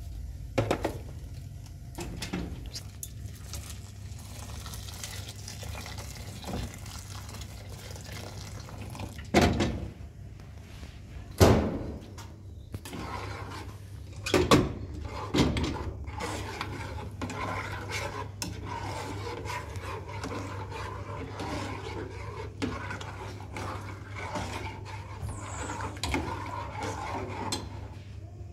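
Cooking at a gas stove: a few sharp clangs of aluminium pots and a metal ladle, then a long stretch of liquid sloshing as it is stirred in an aluminium pot, over a steady low hum.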